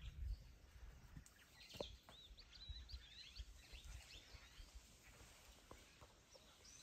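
Quiet bush ambience with faint, quick bird chirps and twitters, busiest from about one and a half to four and a half seconds in, and a few soft low thuds.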